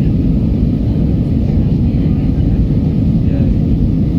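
Steady low rumble of an Airbus A319 in flight, heard inside the cabin at a window seat: engine and airflow noise with no changes.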